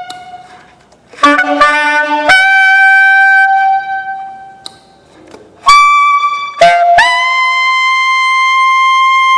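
A 1927 gold-plated Martin saxophone being played. It gives a quick run of notes into a held note that fades away. After a pause, a short phrase ends in a long, steady, higher held note.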